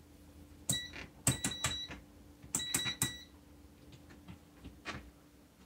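Handheld digital multimeter's rotary range switch clicking through positions, each click with a short electronic beep, in three quick groups in the first three seconds, followed by a few faint ticks.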